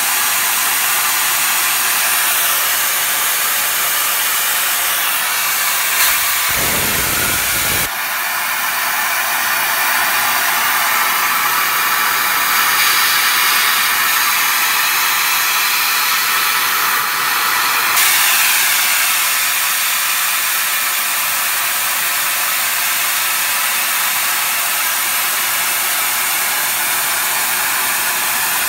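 High-pressure breathing air hissing steadily out of the opened fill valve as the cascade system's fill line bleeds down toward zero pressure. The hiss shifts in tone about eight seconds in and again midway.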